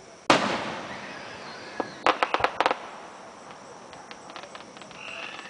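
Aerial firework shells bursting. A loud boom comes about a third of a second in and echoes away over about a second. Around two seconds in there is a quick run of five or six sharp cracks, followed by fainter crackling.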